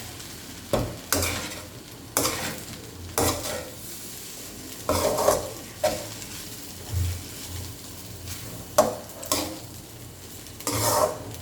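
Fried rice with soy sauce being stirred in a hot pan: a cooking utensil scrapes through the rice in irregular strokes, roughly one a second, over a steady sizzle.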